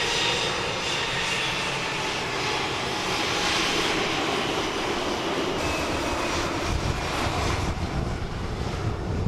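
Airbus A320's CFM56 jet engines running with a steady high whine over a dense rush of noise. From about halfway through, a ragged low rumble of wind on the microphone joins in and grows.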